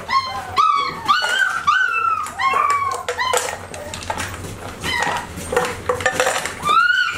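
Young American Bully puppies whining and yipping in quick, high cries that rise and fall, as their soaked kibble is spooned out. The cries thin out midway, and metal clinks and scrapes of a spoon against stainless steel bowls come through before another loud cry near the end.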